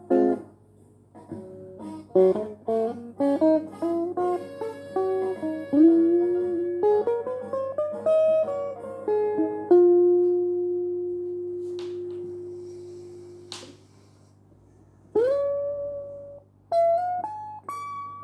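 Electric guitar played alone: a quick single-note melodic phrase, then one long note left to ring and fade over about four seconds. About fifteen seconds in, a bent note rises up to pitch, followed by a few short notes, with a steady low hum underneath.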